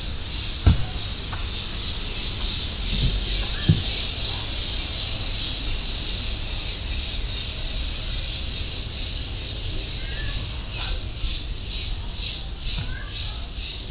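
A bird repeating a short, high, hooked call every two seconds or so over a dense, high-pitched insect chorus. The chorus pulses throughout, and the pulsing quickens in the second half.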